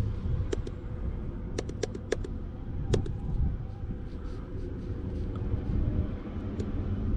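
Steady low rumble of a vehicle engine, with several sharp clicks between about half a second and three seconds in.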